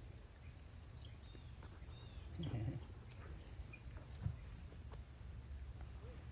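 Steady high-pitched chorus of crickets, with a few faint short chirps and a brief louder sound about two and a half seconds in.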